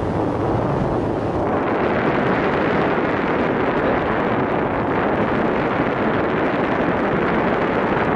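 Steady rush of airflow buffeting the microphone of a paraglider in flight, growing fuller and louder about a second and a half in.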